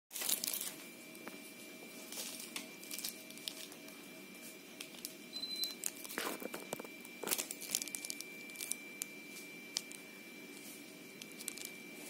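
Daikin FTNE35MV14 wall-mounted split air conditioner indoor unit starting up: a faint steady high whine as its louvre flap swings open, with scattered light clicks and crackles throughout.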